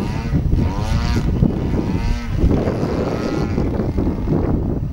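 Engine of a radio-controlled aerobatic model airplane flying overhead, its buzzing pitch rising and falling several times as the plane manoeuvres. Constant wind rumble on the microphone underneath.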